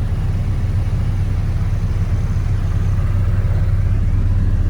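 An engine running steadily with an even low rumble.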